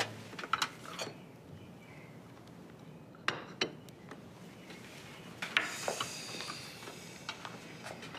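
Cutlery and china clinking at a meal table: scattered light clinks of utensils on plates and cups, a few every second or two.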